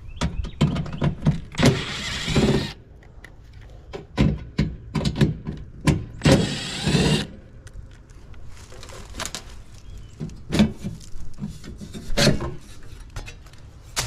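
Cordless Milwaukee driver whirring twice for about a second each, backing screws out of a furnace's sheet-metal access panel. Scattered clicks and metallic knocks come from the screws and the panel being handled and lifted off.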